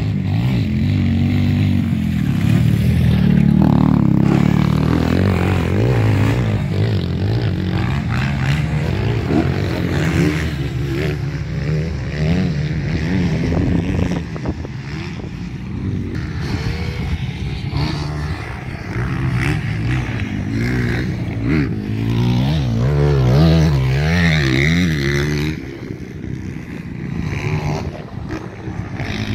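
Yamaha YZ450F dirt bike's four-stroke single-cylinder engine revving hard and backing off as the bike is ridden around a motocross track, its pitch rising and falling over and over with throttle and gear changes. The sound grows fainter near the end.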